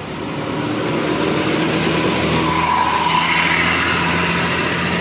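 A bus passing close by, its engine and tyre noise swelling over the first second and easing off near the end.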